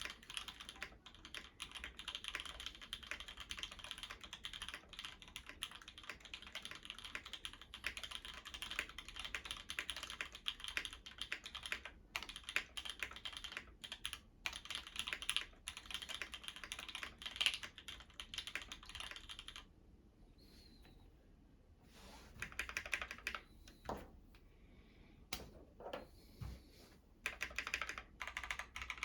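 Typing on a Matrix 8XV2.2 mechanical keyboard with Gateron Mink switches and GMK Miami Dusk keycaps: fast, continuous keystrokes. Typing stops for about two seconds roughly two-thirds of the way through, then comes a short run and a few single key presses, and steady typing picks up again near the end.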